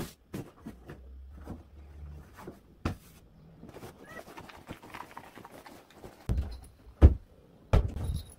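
Bedding being handled while a bed is made: fabric rustling and a lint roller working over a pillowcase, with soft knocks throughout and three louder thumps near the end.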